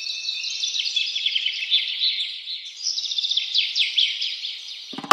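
A dense chorus of many birds chirping and calling at once, full of quick downward-sliding chirps. Music with drums comes in just before the end.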